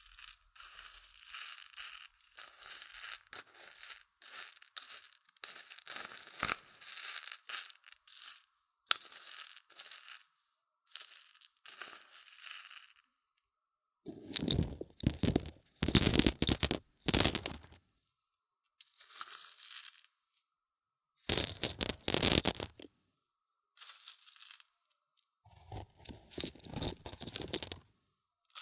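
Mung beans rattled and stirred with a wooden stick inside the silicone ear of a binaural microphone, heard close up: short bursts of dry, gritty rattling with pauses between them. The bursts grow louder and fuller in the middle, with another loud stretch about two-thirds of the way through.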